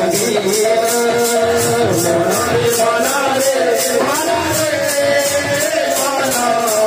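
Odia kirtan music: metal percussion keeps a steady beat of about four strokes a second over low drum beats and a wavering melody line.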